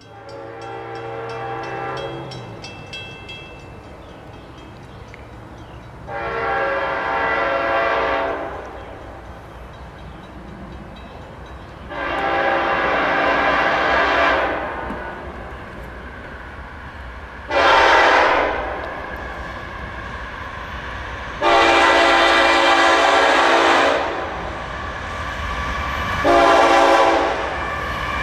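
Air horn of a GE ES44AC diesel locomotive sounding a series of blasts at a grade crossing: mostly long blasts, with two short ones about 18 and 27 seconds in. Under the horn, the low rumble of the approaching diesel locomotive grows louder near the end.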